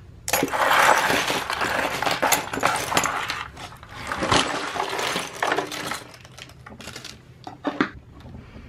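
A heap of metal costume jewelry (chains, bangles, earrings, brooches, beaded bracelets) clinking and clattering as it is shifted and spread out by hand on a table. The clatter is dense for the first half, then thins to scattered single clinks.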